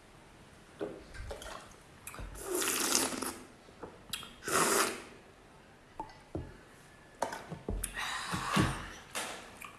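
A person drinking juice: wet slurping and sucking at a glass in three longer bursts, about two, four and a half and eight seconds in, with short clicks and knocks between them.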